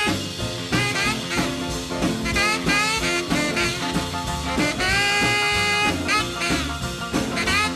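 Background music: a swing-style instrumental with horns playing held and sliding notes.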